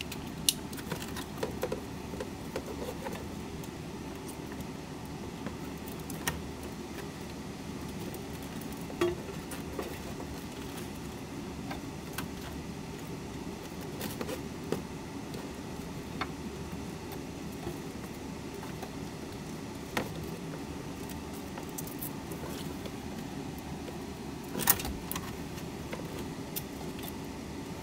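Scattered clicks and light knocks of wiring and plastic parts being handled and tucked away, over a steady low hum.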